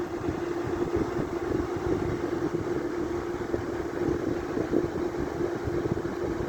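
8000 BTU window air conditioner running steadily: a constant compressor hum with the fan's rushing noise beneath it.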